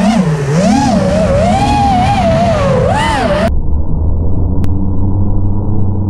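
FPV racing quadcopter's electric motors and propellers whining, the pitch swinging up and down quickly as the throttle changes. About three and a half seconds in the sound cuts off abruptly, and a muffled, low, steady hum follows.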